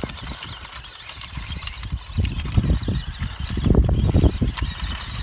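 A WPL C24-1 1/16-scale RC truck crawling over rocks and rubble, its standard electric motor and gearbox giving a steady high whine. From about two seconds in, low thumps and rumbles come in and are the loudest sound.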